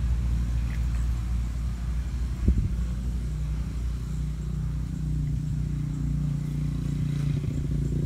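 A motor engine running steadily with a low hum, settling onto a firmer, slightly higher note about three seconds in. There is one brief knock about two and a half seconds in.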